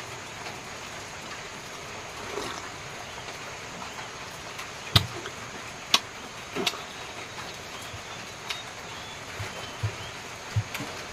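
Eating sounds of a man eating by hand: chewing, with a few sharp lip smacks and clicks, the loudest about five and six seconds in, over a steady background hiss.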